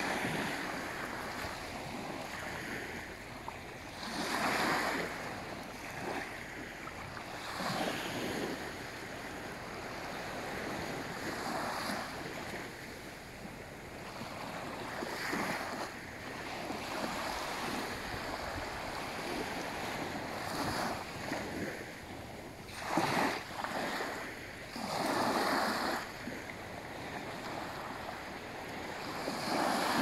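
Small waves lapping and washing up onto a sandy beach: a steady hiss of surf, with a louder wash every few seconds.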